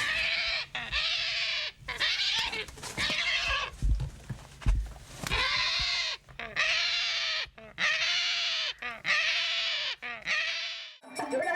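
A series of about eight loud squealing animal calls, each under a second and rising then falling in pitch, with a pause and a few low thuds about four seconds in.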